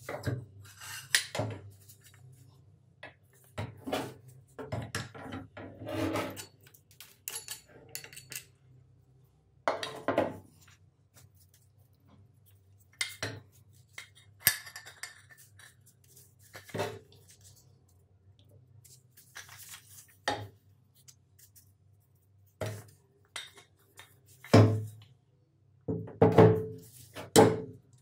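Cast-iron hand-crank coffee grinder being taken apart by hand: irregular metal clinks, knocks and scrapes as the crank and burr housing are worked loose and the iron parts are handled and set down on a wooden workbench. The loudest knocks come in the last few seconds.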